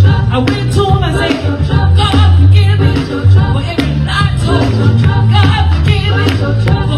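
Gospel music with a heavy bass line and drums, and singing over it.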